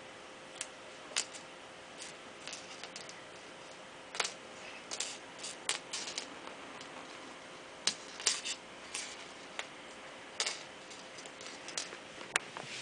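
Irregular light clicks and taps as a kitten bats a small toy about on a wooden floor.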